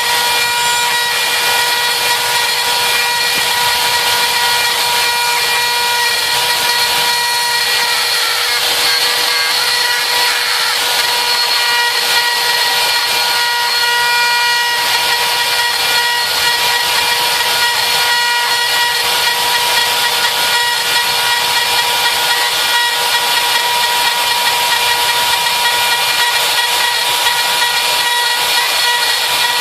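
RotoZip spiral saw on a homebuilt CNC machine running steadily while it cuts, a constant high motor whine over the rasp of the bit in the material.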